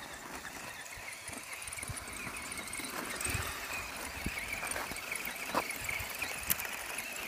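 Axial SCX10 1/10-scale RC crawler's electric motor and geared drivetrain whining steadily as it drives, with scattered knocks from the truck on the snow and ice and one sharp click near the end.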